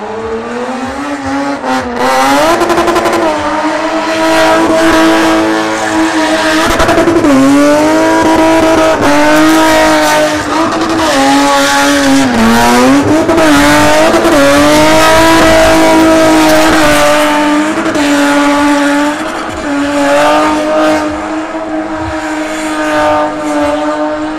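Car engine revved hard and held high while the car spins doughnuts, its pitch dipping and climbing again several times, with the hiss and squeal of wheelspinning tyres.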